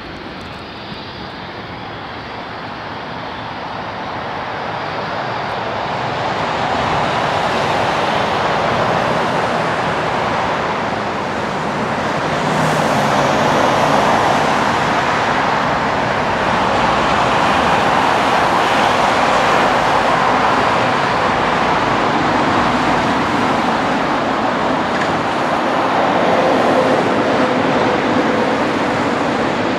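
Boeing 777F freighter's two GE90 turbofan engines running at taxi power as the jet rolls past: a steady jet roar that grows louder over the first several seconds, then holds.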